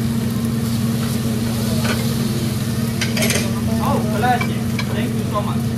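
Food sizzling on a hot teppanyaki griddle over a steady low hum, with a couple of short clicks. Faint voices in the background.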